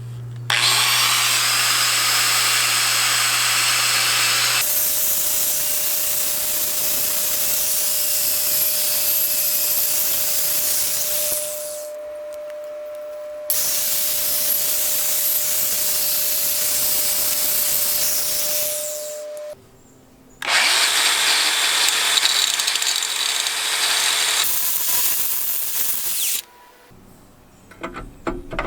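Handheld power tool running in long spells while cleaning out a pedal shaft and its bore, its pitch held steady. It dips briefly about 12 seconds in, stops for about a second around 20 seconds, and shuts off a couple of seconds before the end.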